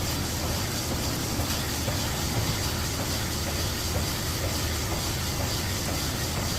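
Steady shop background hiss and low hum, with a few faint light clicks from small valve parts being handled.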